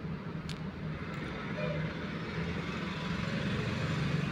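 Small screwdriver driving screws into the plastic battery cover of a toy train, with a sharp click about half a second in, over a steady low background rumble.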